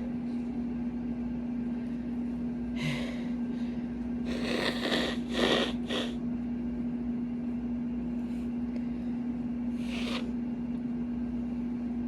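A very loud air-conditioning unit hums steadily. Over it come several short, noisy breaths and sniffs from a person, loudest about four to six seconds in.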